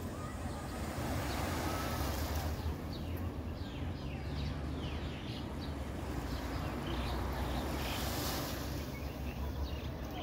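Wind buffeting a phone microphone as a steady low rumble, with small birds chirping in quick runs of short falling notes in the middle and again near the end.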